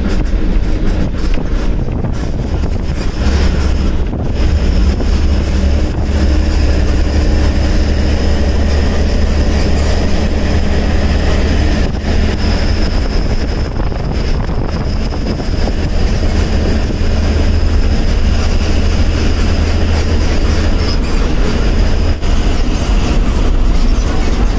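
Diesel bus engine running under way, heard from inside the driver's cabin: a loud, steady deep rumble with constant small rattles from the body and fittings and a thin high whine above it.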